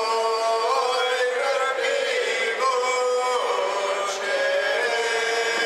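A small group of voices singing a Lika folk song unaccompanied, holding long notes that slide from one pitch to the next.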